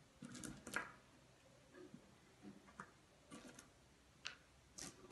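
Small smooth pebbles clicking and knocking faintly against one another and on cardboard as they are picked up and set down, a handful of irregular clicks.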